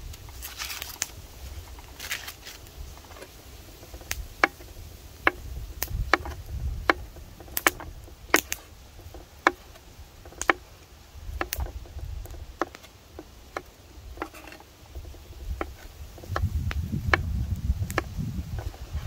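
A large knife chopping roasted food on a wooden board, knocking sharply on the board about once or twice a second from about four seconds in. A few crinkly rustles of foil come in the first seconds, and a low rumble is heard at the start and again near the end.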